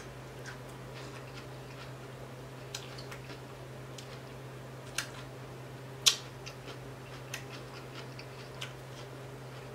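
Close-up eating sounds of a person chewing fried tilapia: a few sparse, sharp mouth clicks and smacks, the loudest about five and six seconds in, over a steady low hum.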